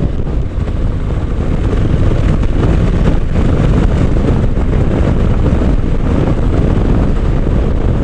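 Wind rushing over the microphone, mixed with the steady low drone of a Honda NC750X parallel-twin motorcycle cruising at an even road speed.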